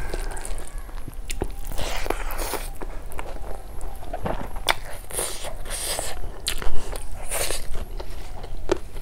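Close-miked eating of snail curry with rice and salad: chewing and mouth noises with irregular sharp clicks and crunches, the loudest about six and a half seconds in.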